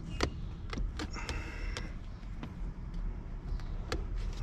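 Scattered small plastic clicks and a brief scrape from steering-wheel trim and its yellow airbag connector clips being worked loose by hand, over a steady low rumble.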